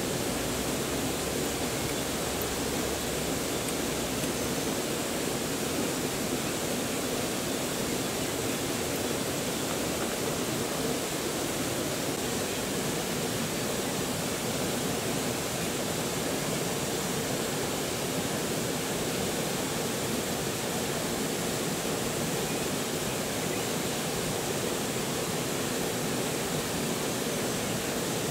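Mountain river rushing over stones: a steady, even roar of water.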